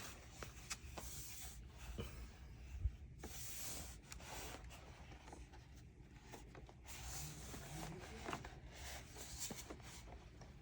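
Faint handling noises of a plastic robot vacuum being turned over and examined by hand: light rubbing and scattered small clicks, with one sharper knock about three seconds in.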